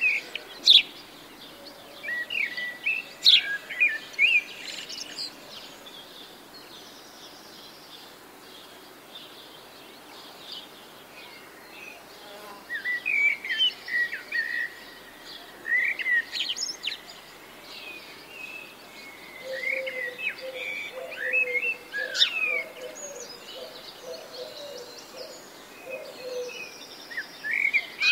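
Birds chirping: clusters of short, sharp chirps that glide up and down in pitch, with a quieter stretch of a few seconds before they pick up again.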